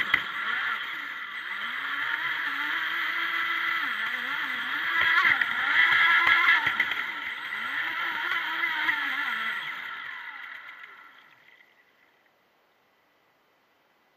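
Proboat Formula Fastech RC boat's stock brushless electric motor whining, with water rushing past the hull, its pitch rising and falling several times with the throttle. The sound fades away about eleven seconds in, leaving near silence.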